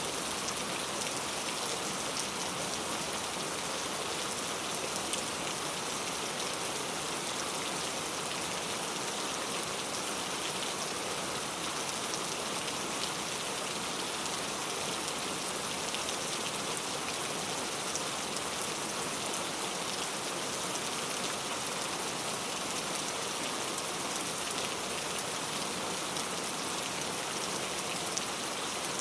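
Heavy rain falling steadily, a dense even hiss with the ticks of individual drops scattered through it.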